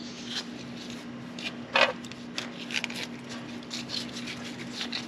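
A new tractor fuel injector being worked down into its bore in the cylinder head: faint metal scrapes and small clicks, with one louder short scrape about two seconds in. A steady low hum runs underneath.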